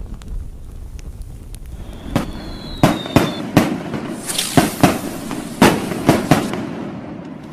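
Fireworks going off. After a quiet start, sharp bangs begin about two seconds in, with a short high whistle. From about four seconds in there is dense crackling between repeated bangs.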